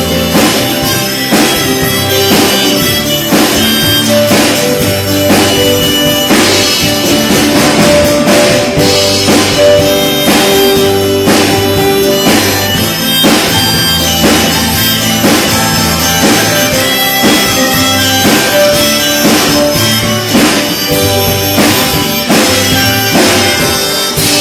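Live band playing the song with a steady drum beat and long held melody notes over it.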